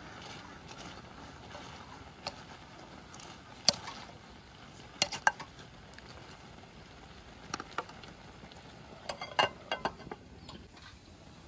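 A ladle clinks and knocks against a ceramic pot while stirring hard-shelled June beetles, in scattered single clicks. Near the end comes a quick cluster of clinks as a ceramic lid is set on the pot, over a steady low hiss.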